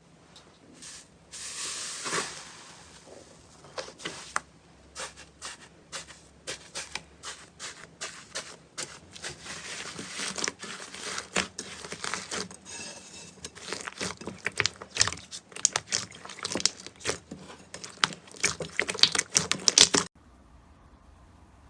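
Slime being squished and poked: a dense run of sticky pops and crackles that cuts off suddenly near the end.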